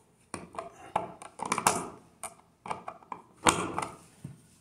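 Needle-nose pliers scraping and clicking on a broken screw in a plastic wall electrical box, in irregular bursts with the loudest scrapes about a second and a half in and again near three and a half seconds.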